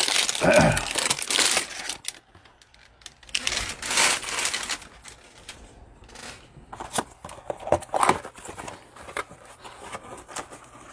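Plastic wrapper being torn and crinkled off a cardboard trading-card hanger box, with a loud tearing rustle about four seconds in. Scattered rustles and small clicks follow as the cardboard box is handled and its flap opened.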